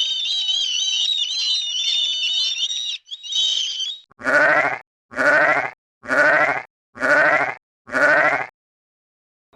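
Five evenly spaced bleats of a sheep or goat, each a quavering cry of about half a second, in the second half. They are preceded by a few seconds of high, wavering warbling.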